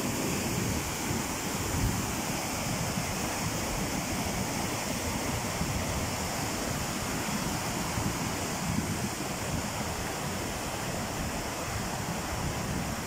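Mudflow: a torrent of thick, brown, muddy floodwater rushing over a dirt road and down a gully, a steady churning noise without a break.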